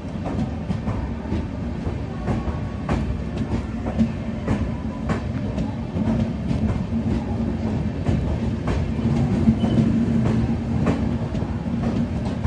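Indian Railways LHB passenger coaches rolling slowly past at close range: a steady low rumble and hum with a clickety-clack of wheels striking the rail joints every second or so.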